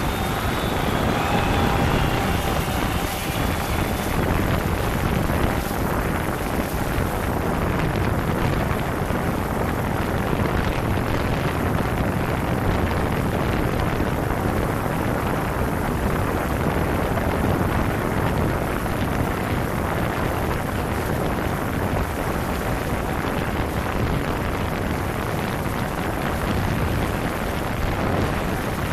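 A hovering quadcopter heard from a camera hung just beneath its rotors: a steady rushing noise of propeller downwash buffeting the microphone, with no distinct motor whine standing out.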